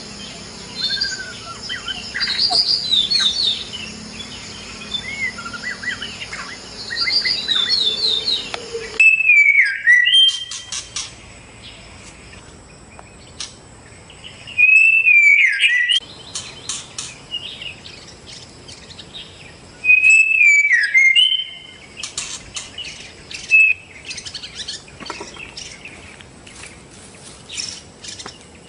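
White-rumped shama singing: a run of quick, varied chirps and trills, then, after an abrupt change about nine seconds in, loud swooping whistled phrases about every five seconds with bursts of sharp clicking notes between them.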